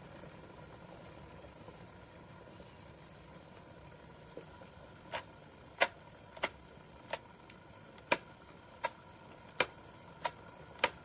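Glass electric kettle giving a series of sharp, irregular ticks, about nine of them starting about halfway in, over a faint steady hiss that fades early on.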